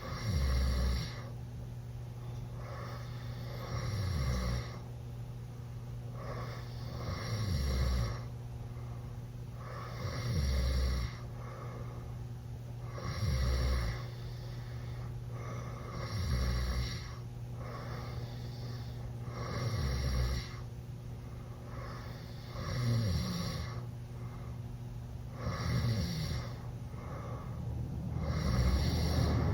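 A teenage boy snoring loudly with his mouth open after drinking: nine deep snores, one about every three seconds.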